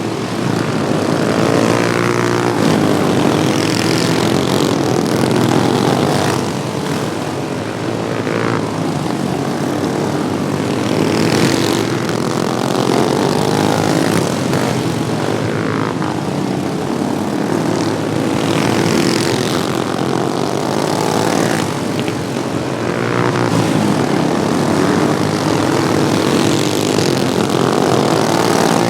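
Modified Wheel Horse racing lawnmowers running around an oval track, several small engines buzzing together, their pitch rising and falling again and again as they pass.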